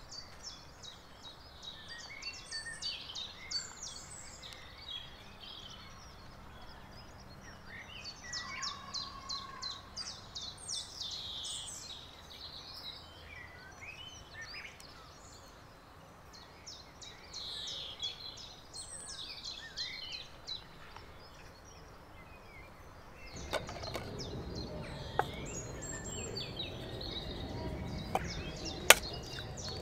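Small birds singing, with repeated chirps and short trills throughout. A few sharp clicks come in the last few seconds, the loudest just before the end.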